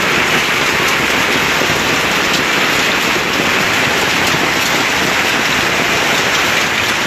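Hail mixed with heavy rain pelting a street and parked cars: a loud, steady rush of countless small impacts.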